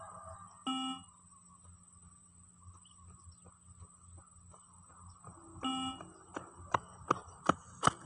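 Two beeps of a 20 m shuttle-run (beep test) recording, about five seconds apart, each marking the end of a shuttle. After the second beep, running footsteps of boots on concrete come in and grow louder as the runner approaches.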